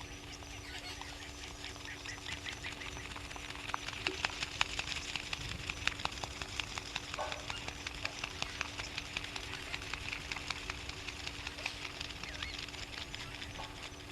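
Wild birds chirping and calling in a dense chorus of quick chirps and clicks, busier and louder from about four seconds in, over a steady low hum.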